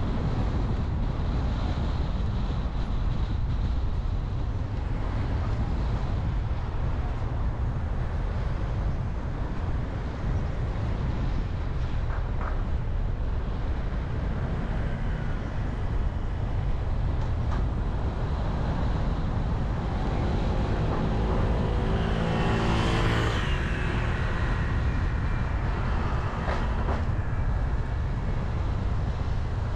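A car driving, with a steady low rumble of road and engine noise. About twenty seconds in, a louder pitched engine sound swells and fades over a few seconds, like another vehicle passing close by.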